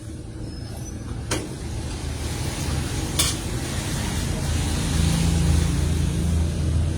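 A steady low motor rumble that slowly grows louder, with two sharp clicks, about a second and about three seconds in.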